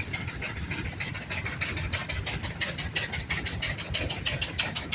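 An engine running steadily with a fast, even beat of sharp strokes, about seven or eight a second, over a low rumble.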